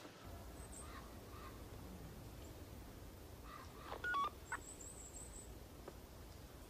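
Faint background hiss, with a short run of mobile phone keypad beeps about four seconds in: two brief tones, one straight after the other, then a fainter one.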